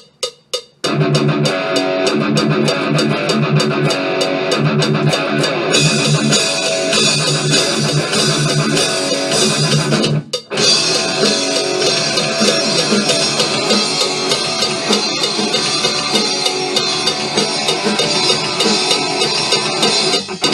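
A metronome click at 196 beats per minute ticks for about the first second, then a rock song kicks in with guitar, bass and drum kit playing loudly as the drums are tracked to it. About ten seconds in the band stops for a split-second break, then carries on.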